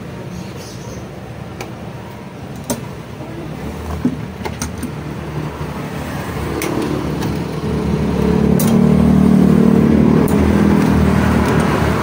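A motor vehicle's engine rumbles steadily, building up a little past the middle and staying loud to the end. Over it come scattered small clicks as wires and plastic clips on the fan's circuit board are handled.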